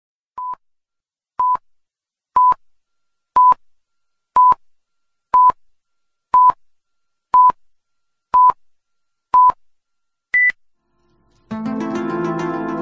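Countdown-leader beeps: ten short beeps at one pitch, one a second, then a single higher beep. Music begins about a second and a half before the end.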